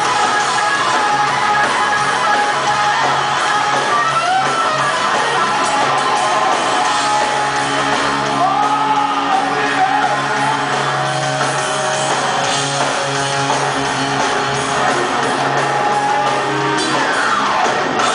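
Live rock band playing loudly in a hall: electric guitar over bass and drums, with bending notes and a long falling glide near the end.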